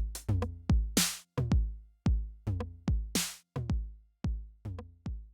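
Roland TR-8 drum machine playing a factory pattern on its 909-style kit, unprocessed. Deep kick drums whose pitch drops on each hit are joined by sharper percussion hits and a cymbal burst about every two seconds.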